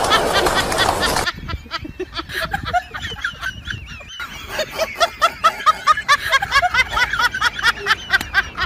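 Rapid honking, snickering laughter: a long run of short nasal cackles, several a second, with a brief break in the middle. Music cuts off just before it starts, about a second in.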